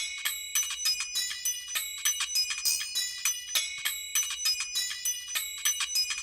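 Background music: a light, quick run of high bell or chime notes with almost no bass, before fuller music comes in at the end.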